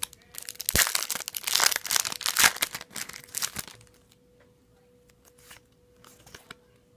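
Foil booster-pack wrapper crinkling and tearing as a Yu-Gi-Oh pack is opened. The crackling dies down after about four seconds, leaving only a few faint clicks.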